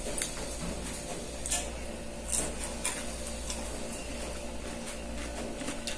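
Someone eating by hand from a plate: scattered small clicks and crunches of chewing and of fingers against the plate, a few sharper ones near the middle. A steady low mechanical hum runs underneath.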